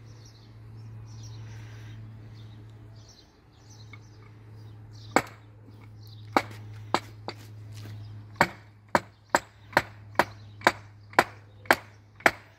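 Large kitchen knife chopping down through a fish head onto a plastic cutting board: a few scattered sharp blows about five seconds in, then a steady run of chops about two a second.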